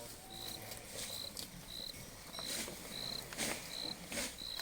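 Cricket chirping steadily, a short high chirp about every two-thirds of a second, with three brief rustling noises over it in the second half.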